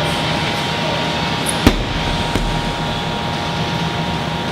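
A sledgehammer strikes a tire once about a third of the way in, with a smaller knock from the bounce shortly after, over a steady background hum.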